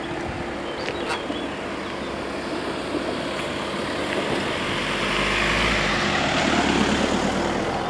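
Volkswagen Golf hatchback driving slowly over the level crossing and passing close by. Its engine and tyre noise swells to a peak about five to seven seconds in, with a low rumble as it crosses the rails.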